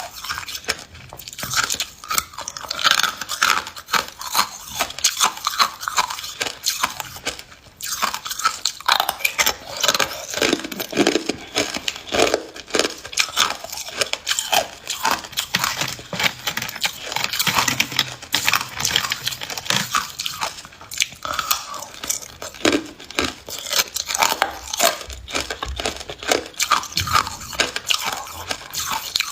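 A person biting and chewing ice, with dense, continuous crunching and cracking of the ice between the teeth and a brief pause about eight seconds in.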